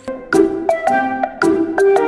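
Background music: light plucked and mallet-like melody with clear note attacks.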